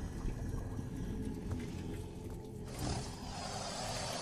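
Film sound design of the alien creatures: a low, rumbling growl-like sound, joined about three seconds in by a loud hiss.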